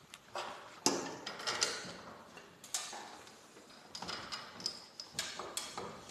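Irregular metal clinks and clicks of bolts and hand tools being handled while two pieces of garage door torsion spring hardware are bolted together, with a few sharper knocks about a second in, near three seconds in and between four and five and a half seconds in.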